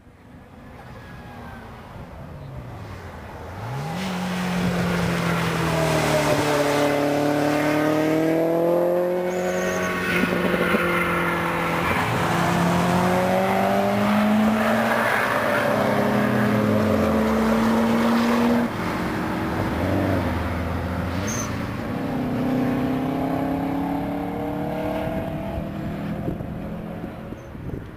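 Race car engines on a circuit, accelerating hard through the gears: the pitch climbs within each gear and drops at each shift, and falls away as a car passes by.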